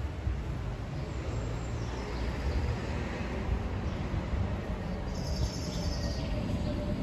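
City street ambience: a steady low rumble of distant traffic with small birds chirping, a cluster of chirps about five seconds in.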